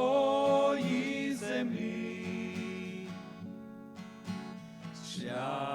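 Group of voices singing a Ukrainian hymn with instrumental accompaniment: a line ends on a held chord, the accompaniment carries on alone more softly, and the voices come back in with the next line near the end.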